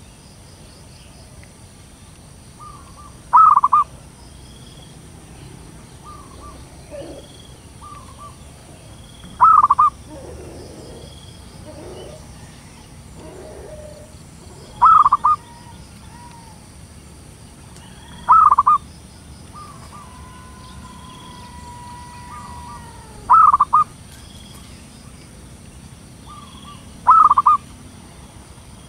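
Female zebra dove (perkutut) cooing, the call used as a lure: six short, loud coos a few seconds apart, each led in by softer notes. Faint high chirps run behind them.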